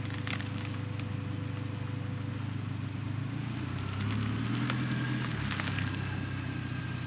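Truck driving: a steady low engine and road hum with light crackling from the tyres.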